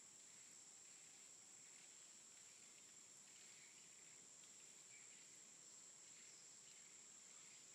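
Faint outdoor nature ambience: a steady, high-pitched insect drone, with soft chirps now and then.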